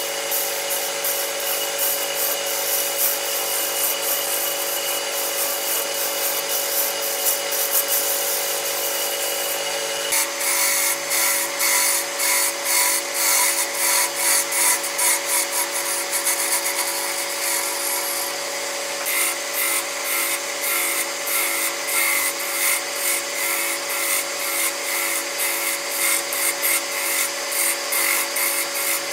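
Homemade wood lathe running with a steady motor whine while a tool scrapes against the spinning wood in repeated strokes. About ten seconds in the cutting changes and the strokes become more pulsing.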